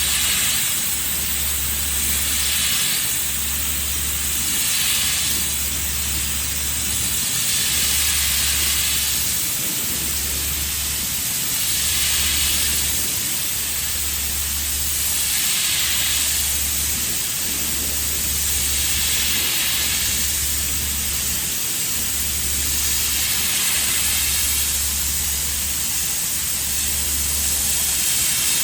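Pressure washer spray hissing steadily, swelling and fading about every two seconds, over a low hum that briefly drops out now and then.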